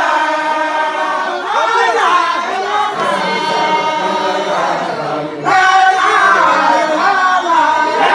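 Male voices chanting a Sufi zikr together, long drawn-out notes sung by many men in unison with slow bends in pitch. A louder new phrase starts about five and a half seconds in.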